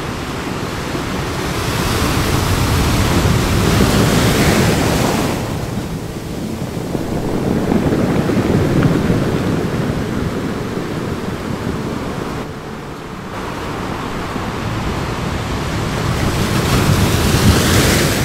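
Sea waves washing and surging, a steady rush of water that swells and fades three times.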